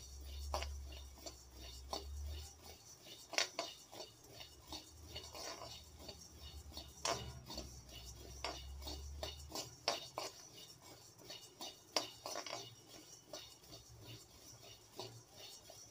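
Steel spatula stirring coriander seeds in a dry kadai during dry-roasting: irregular scrapes against the pan and the seeds rattling and clicking as they are tossed, with a low hum under parts of it.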